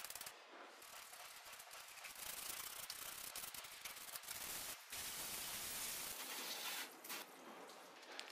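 A bristle cleaning brush scrubbing wet, soap-covered painted sheet metal in a car's engine bay: a faint scratchy hiss of rubbing strokes, with a short break about halfway.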